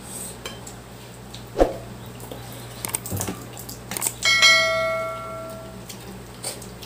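A single bell-like ring, struck about four seconds in and dying away over about a second and a half, among a few sharp clicks and knocks.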